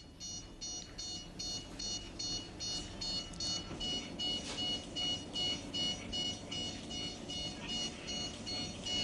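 Electronic beeping: a short high beep repeating about three times a second, over a low steady hum.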